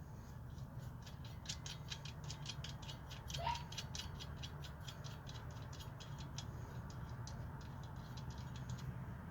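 A rapid, even run of small metallic clicks, several a second, lasting about five seconds, from hand work on the alternator and its bolts.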